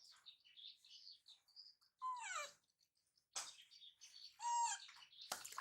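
A young pet animal's high-pitched cries: one falling in pitch about two seconds in, a short one after it, and a louder, held one near the end, followed by a sharp click.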